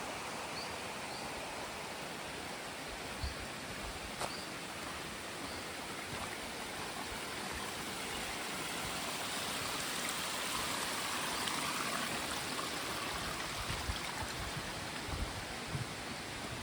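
Steady rush of flowing water, with occasional low thumps.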